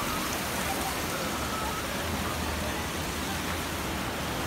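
Water rushing steadily over a concrete weir and spilling into a channel, an even, unbroken hiss of falling water.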